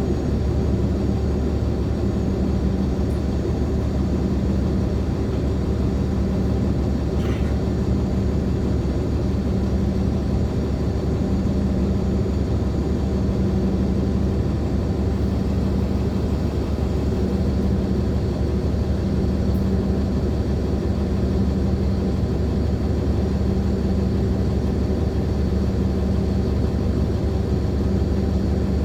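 Inside a Nova Bus LFS articulated hybrid bus under way: steady low rumble of its Cummins ISL9 diesel engine and the road, with a low hum that comes and goes every second or two.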